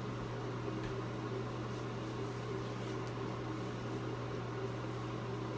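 Steady low hum with an even background hiss, unchanging throughout, like a room's fan or appliance running.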